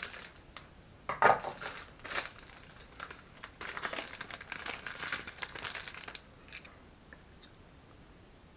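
Plastic packet crinkling and rustling as it is opened and handled, in irregular crackly bursts for about six seconds, then stopping.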